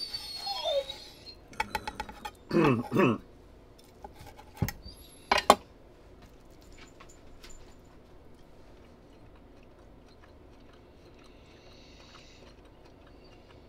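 A chef's knife slicing cooked ribeye steak on a wooden cutting board, a brief vocal sound about three seconds in, then the knife knocked down on the board with two sharp knocks around five seconds in. After that only faint chewing as the steak is eaten.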